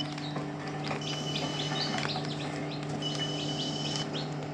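Newly hatched chicks peeping inside an incubator, short rising chirps mixed with a flat, high piping note that repeats about every two seconds. A steady low hum, typical of the incubator's fan, runs underneath.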